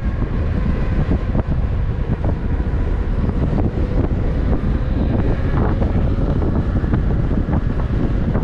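Heavy wind buffeting the microphone while riding an electric unicycle at speed, a steady low rumble with a faint constant whine above it.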